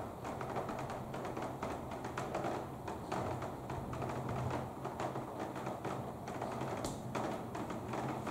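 Raindrops tapping irregularly on a hard surface close to the microphone during a thunderstorm, a few taps a second with one louder tap about seven seconds in, over a low steady hum.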